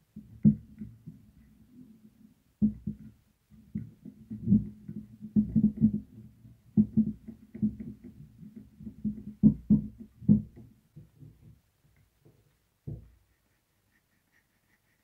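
Plastic squirrel-cage blower wheel of a cooker-hood extractor fan being handled and worked off its motor: irregular knocks and rubbing, ending about eleven seconds in apart from one last knock.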